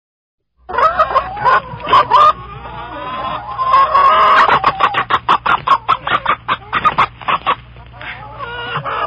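Chickens clucking: the sound starts suddenly about half a second in, with scattered clucks and calls, then a quick run of short, evenly spaced clucks, about four a second, through the middle.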